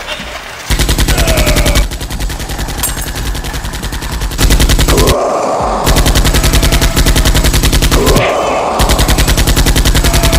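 Rapid automatic gunfire, a machine-gun sound effect, starting about a second in and firing in long bursts, with two short breaks filled by a noisier burst about five and eight seconds in.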